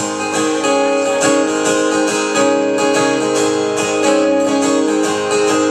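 Acoustic guitar playing the introduction to a country song, strummed and picked in a steady rhythm, starting suddenly right at the start.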